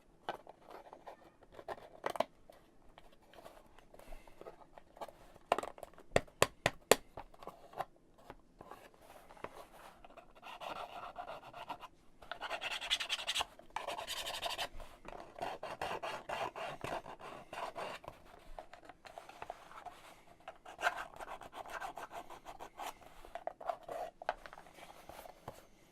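Small MDF kit pieces being handled on a tabletop: a few sharp clicks and taps, a quick cluster of them about six seconds in, then longer stretches of scratching and rubbing.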